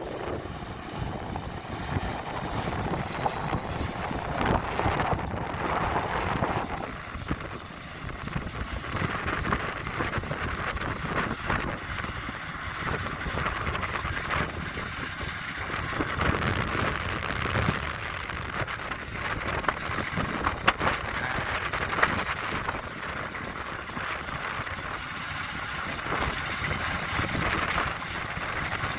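Kubota DC-93 combine harvester running steadily, with wind buffeting the microphone.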